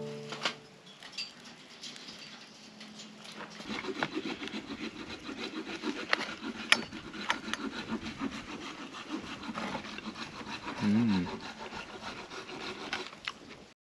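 Knife and fork cutting roasted peppers in a stainless steel bowl: irregular scraping and sawing strokes with light clinks of metal on the bowl. A brief low wavering hum sounds about eleven seconds in.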